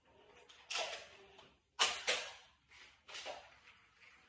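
Nerf Roundhouse XX-1500 foam-dart blaster being pumped and fired, a few short, sharp clacks and thwacks: one about a second in, two close together in the middle, and one more later.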